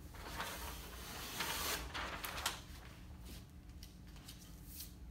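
Rustling and crinkling of a large sheet of chart paper being handled and pressed up onto a whiteboard, strongest in the first couple of seconds, then a few light taps and clicks as it is put in place.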